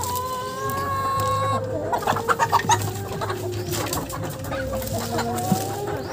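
Heritage chickens clucking in their pen, with one long drawn-out hen call in the first second and a half, then a cluster of short sharp sounds about two to three seconds in.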